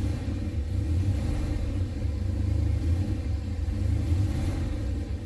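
Boosted 408 cubic-inch LS V8 running steadily a little above idle with the throttle held slightly open, a deep even rumble heard from inside the car. The engine is on only its third start since being built.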